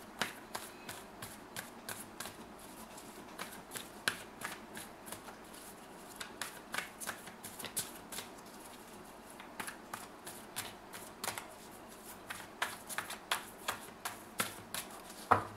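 A deck of tarot cards shuffled overhand by hand: an irregular run of quick, light card clicks and slaps, several a second.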